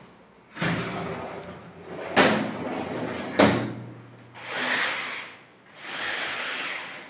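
Sliding window frames and a pleated mosquito net being pulled along their aluminium tracks: three sharp knocks as the frames hit their stops, then two longer sliding rasps near the end.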